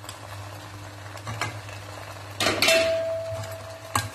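Spatula stirring pasta in ketchup gravy in a nonstick wok, scraping and knocking against the pan a few times, loudest about two and a half seconds in. A thin steady tone sounds for about a second near the end.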